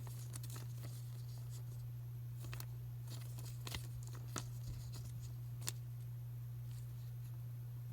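Faint rustling and a few sharp clicks of a trading card and its plastic holder being handled, over a steady low electrical hum.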